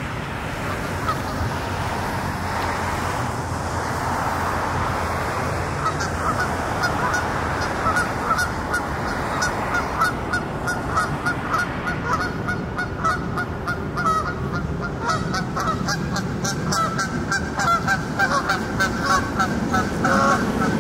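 Geese honking: many short, repeated honks that start about a third of the way in and grow more frequent and louder toward the end, over a steady outdoor rush.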